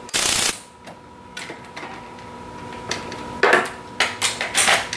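Hand ratchet and loose 10 mm bolts clinking and rattling as bolts are worked out from under a pickup's front bumper and set on a concrete floor. There is a brief noisy clatter at the start and a run of sharp metallic clicks about three and a half seconds in.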